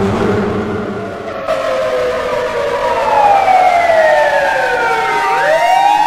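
Siren wailing: a long falling tone slides down for a couple of seconds, then sweeps quickly back up near the end and holds high.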